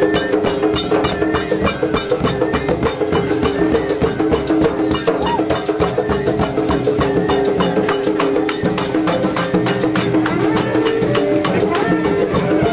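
Traditional folk music: a fast, even beat of drums and jingling percussion over a held melody line.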